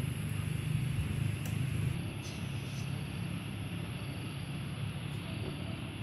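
Steady outdoor night ambience after rain: a low rumble with a thin, high, steady whine above it, easing slightly about two seconds in.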